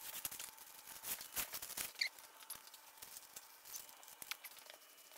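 Faint crinkling and light, irregular ticks of masking paper and tape being pulled from a hand masker and pressed down.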